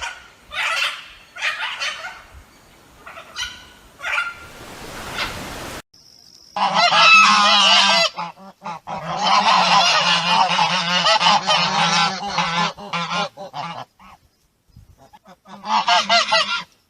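Chinese geese honking loudly: a handful of separate honks first, then a long stretch of many honks overlapping at once, a brief gap, and another short burst of honking near the end.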